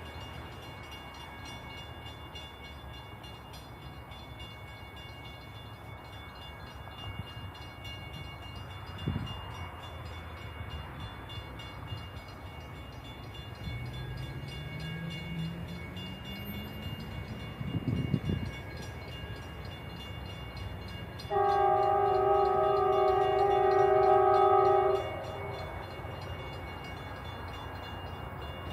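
Steady hum of road traffic with one vehicle accelerating, then, well over halfway through, one long blast of about four seconds from a diesel locomotive's multi-chime air horn: the horn on rebuilt GP40-2H 6694, whose horn the uploader says sounds really bad.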